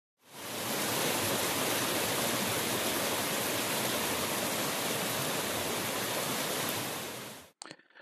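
Rushing mountain stream flowing over rocks: a steady rush of water that fades in at the start and fades out near the end.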